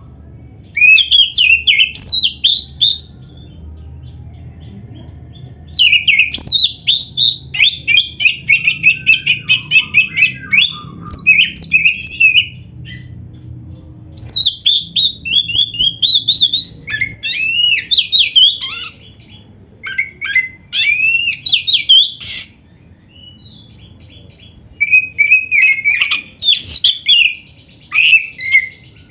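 Oriental magpie-robin (kacer) singing in bouts of rapid, varied whistles, glides and warbles, broken by short pauses. The song is full of fill-ins, phrases mimicked from other birds.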